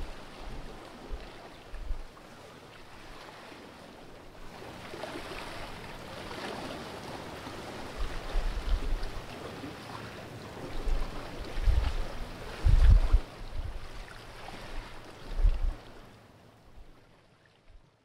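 Sea water washing and lapping against the rocks of a cliff inlet, a steady wash broken by a few low thuds, then fading out near the end.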